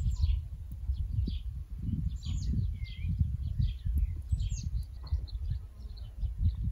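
Small songbirds chirping, with frequent short falling calls one after another, over a low rumble of wind on the microphone.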